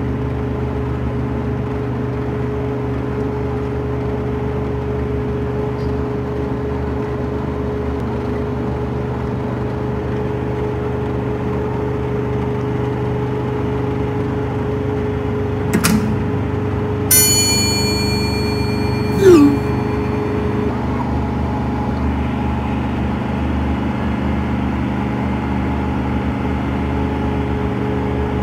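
Asphalt cold-milling machine running, its diesel engine a steady low drone as the conveyor loads milled asphalt into a dump truck. A little past halfway come a sharp click, a brief high-pitched squeal and a short falling whistle.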